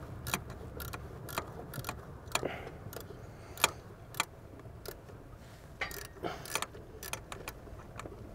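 Irregular metallic clicks and clinks of a hand wrench working an upper transmission bolt loose in the engine bay, with a couple of louder clinks midway.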